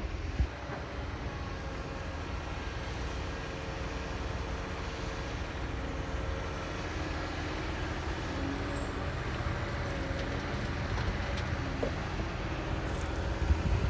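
Heavy diesel machinery running steadily, a continuous low engine rumble with a faint hum above it and a brief knock about half a second in.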